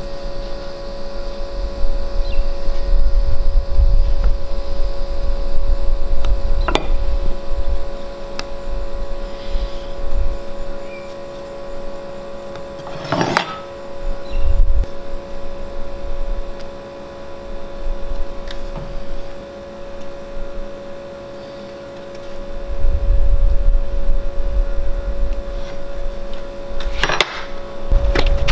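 Uneven low rumble of wind buffeting an outdoor microphone over a steady hum, with a few sharp cracks about 7, 13 and 27 seconds in.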